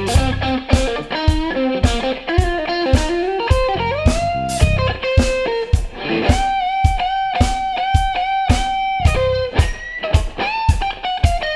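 Electric guitar solo over a funk band's groove, with drums keeping a steady beat. The guitar plays a melodic line, slides a note upward about four seconds in, then holds one high note for about three seconds.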